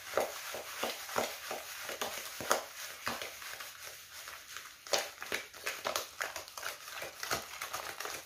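A spoon mixing mashed bananas, margarine and sugar in a plastic bowl: irregular knocks and scrapes of the spoon against the bowl, several a second.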